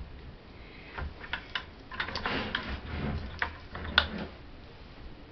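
Light clicks and knocks of a plastic bucket and a lined soap loaf mould being shifted on a tabletop, the sharpest click about four seconds in.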